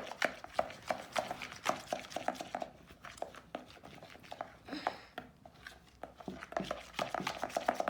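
Slime being mixed with paint, giving quick irregular squelching clicks and pops that ease off in the middle and pick up again near the end.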